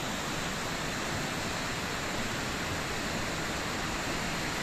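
Steady rushing of running water: an even hiss with no distinct events.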